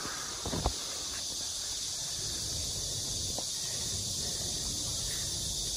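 Steady high-pitched chorus of insects buzzing, with a few short dull knocks about half a second in.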